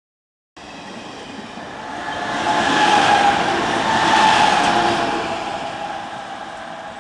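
WCG-2 DC electric banker locomotives passing close by, their blowers howling in several steady tones over the running noise. The sound swells to its loudest about three to four seconds in and fades as the locomotives move away.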